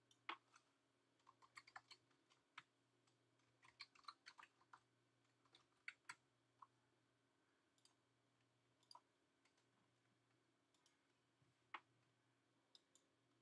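Near silence with scattered faint, sharp clicks and taps, bunched together in the first few seconds and sparse later, over a faint steady low hum.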